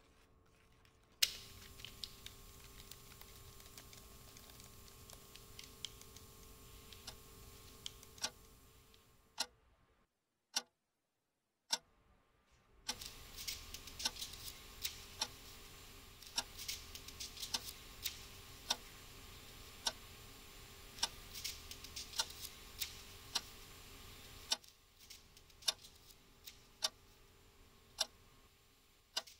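Clock ticking quietly, about once a second, over faint room tone; it drops out for a couple of seconds near the middle.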